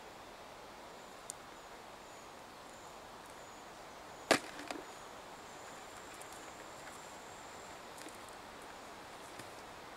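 A sharp knock about four seconds in, followed by a couple of small ticks, as the hoops of a fish trap (fyke net) are handled; a few fainter ticks come before and after, over a quiet outdoor background with a thin, faint high-pitched whine.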